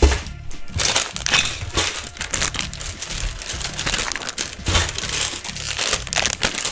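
Sealed plastic bags of building-brick pieces crinkling and rustling as they are handled, an irregular run of crackles.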